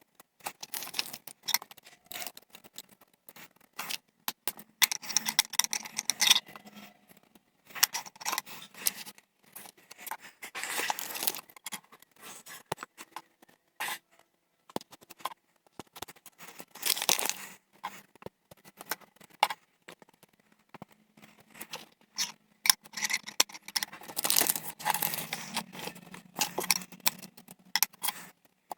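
Small plastic LEGO pieces being handled and pressed together: irregular clicks and clacks mixed with bursts of rustling and scraping as the pieces are picked through.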